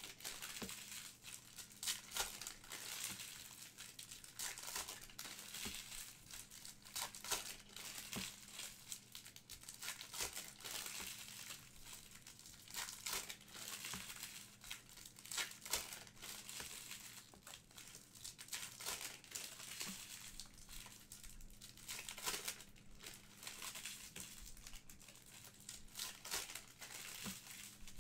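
Trading-card pack wrappers crinkling and tearing as packs are ripped open and cards are handled, a continuous run of irregular rustles and crackles.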